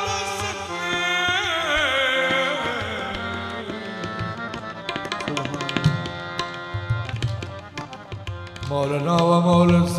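Devotional qawwali-style music. A male voice holds a long, wavering melisma over harmonium for the first few seconds. Then tabla strokes take over, and near the end the harmonium's steady held chord comes back louder.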